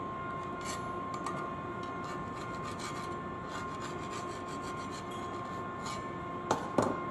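A steel hand tool scraping and rubbing along the edges of milled slots in a mild steel flat bar, knocking off the burrs. Two sharp metallic knocks near the end.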